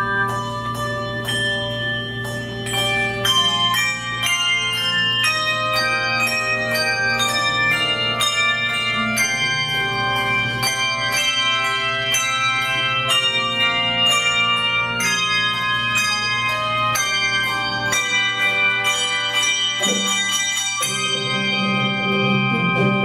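Handbell choir playing a piece: many bells struck one after another in a quick melody, each note ringing on under the next. Lower notes come in near the end.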